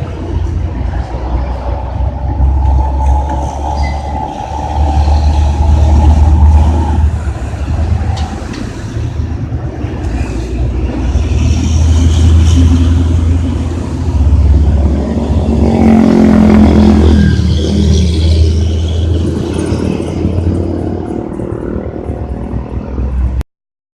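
Dump truck's diesel engine revving through a loud growling 'ngorok' exhaust, with a deep rumble that swells and falls in repeated surges. The sound cuts off suddenly near the end.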